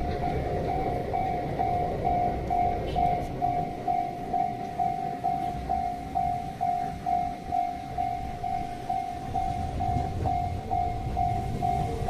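Japanese level-crossing warning bell ringing in an even, rapid pattern of about two strokes a second, over a low rumble.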